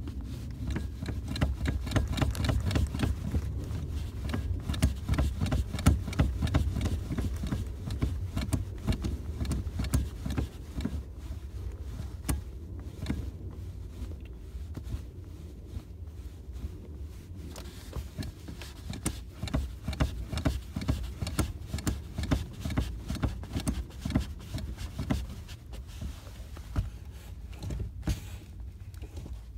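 An old car's engine running while the accelerator pedal is pumped repeatedly, the engine sound rising and falling unevenly. It is louder in the first ten seconds or so.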